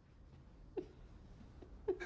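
A man crying quietly, doubled over: two short choked sobs about a second apart.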